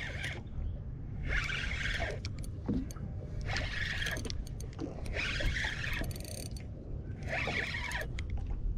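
Spinning reel being cranked in four short bursts, each under a second, about two seconds apart, as a hooked fish that is not fighting hard is reeled in; a steady low rumble runs underneath.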